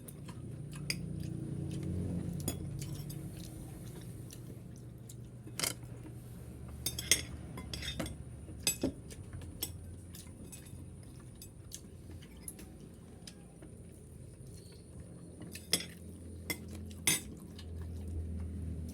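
Cutlery clinking and scraping against plates during a meal, a scattered series of sharp clinks.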